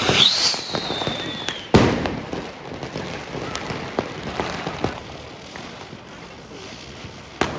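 A whistling firework: a shrill whistle shoots up in pitch, then slides slowly down for about a second and a half, ending in a loud bang. A few more firecracker pops follow, one near the end.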